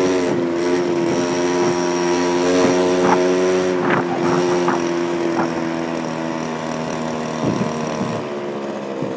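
Go-Ped gas scooter's small two-stroke engine running at a steady cruising pitch while riding. A few short knocks come through in the middle, and the engine eases off a little toward the end.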